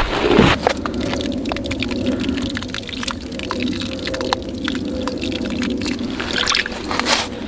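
Dry groundbait crumbled by hand and scattered into an ice-fishing hole: a run of small irregular ticks and patters as the grains land on the water and ice, over a steady low noise. A brief loud rush right at the start.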